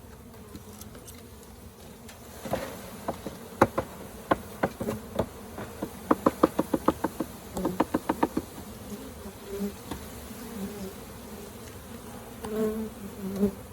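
Honeybees buzzing as a bee package is emptied into a hive, with a series of sharp knocks as the package is banged to shake the bees down. The knocks start a couple of seconds in and come in a quick run of several per second in the middle.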